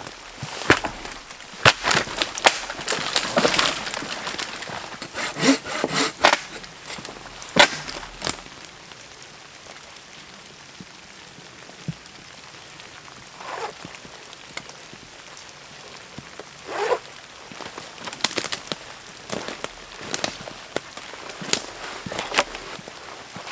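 Wet firewood being broken and cut by hand: a run of sharp cracks and snaps, with rasping, saw-like strokes in the first few seconds, a quiet pause midway, then more scattered snaps. A steady hiss of rain lies beneath.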